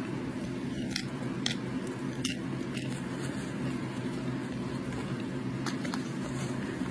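Chunks of pressure-cooked Argo cornstarch being bitten: a few short, dry crunches, four in the first three seconds and two more near the end, over a steady low hum.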